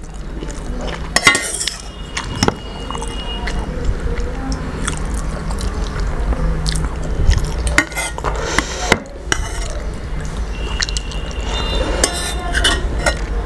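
Steel ladle clinking against a steel serving pot several times as curry is scooped out and poured onto a plate, with the soft sounds of rice being mixed by hand and chewing.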